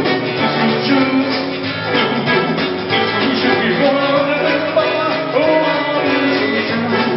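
A man singing into a microphone while playing an acoustic guitar, holding long notes about four seconds in.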